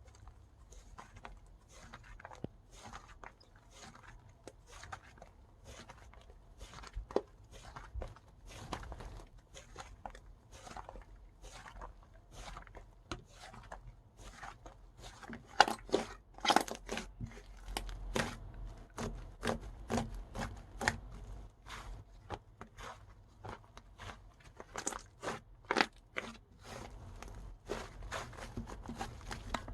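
Hands squishing and pressing a strawberry slime, giving a steady run of small crackly clicks and pops, about two to four a second, that grow louder and busier about halfway through.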